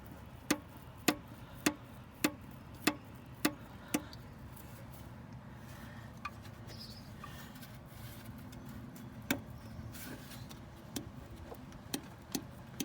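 Connecting rod being rocked by hand on its crankshaft journal, clicking with its play, about two sharp clicks a second at first and a few more near the end. The owner suspects worn rod bearings, though the movement seems to be front to aft.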